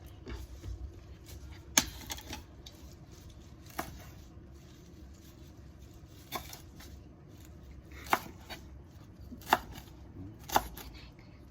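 Kitchen knife cutting on a cutting board: about six sharp, irregularly spaced knocks over a low steady hum.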